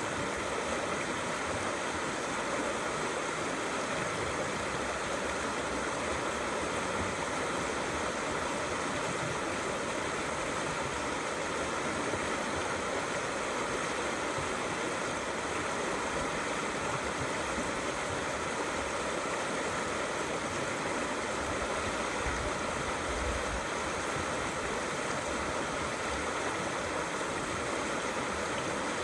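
Small river flowing and gurgling steadily, an even rush of running water.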